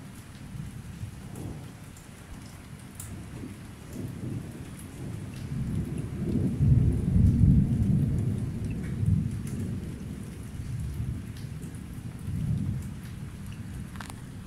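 Thunder rumbling low, swelling to its loudest about halfway through and then slowly dying away, over steady rain with scattered drop ticks.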